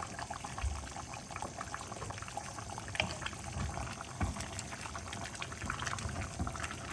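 Beef stirred with a wooden spoon in a terracotta clay pot as it simmers in the juices released from the meat: a wet, crackling bubbling and squelching, with a few dull knocks.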